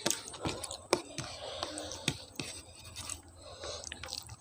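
Close-miked eating of a curry-and-rice meal: wet chewing with frequent sharp mouth clicks and smacks.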